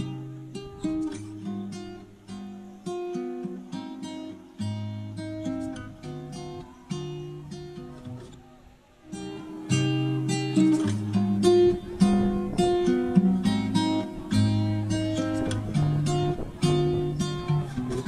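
Acoustic guitar background music of plucked notes. About nine seconds in it briefly fades, then returns louder and fuller.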